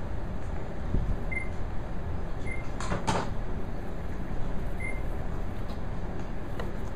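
Two quick knocks, close together about three seconds in, over a steady low room rumble.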